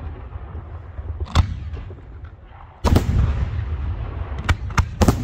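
Professional fireworks going off: sharp booming bangs of aerial shells bursting, a single one about a second in, a big one near three seconds followed by long rolling rumble, then a quick cluster of bangs near the end, over a continuous low rumble.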